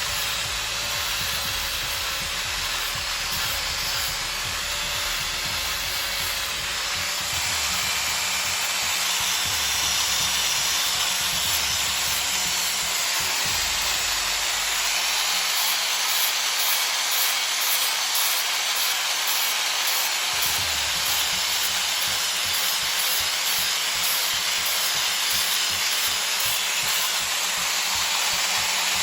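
Power sander running against the wood of a large tree root, a steady abrasive noise that gets a little louder about ten seconds in.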